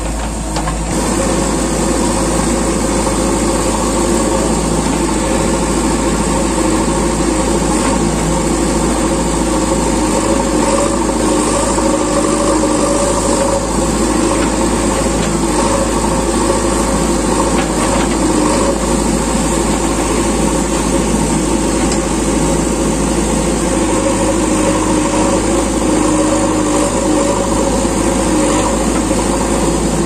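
JCB 3DX backhoe loader's diesel engine running steadily while the machine digs, a constant even drone throughout.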